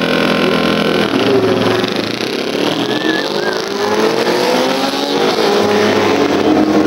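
Several vintage racing motorcycles held at steady revs on the start line, then pulling away together about a second in, their engine notes climbing and overlapping as they accelerate.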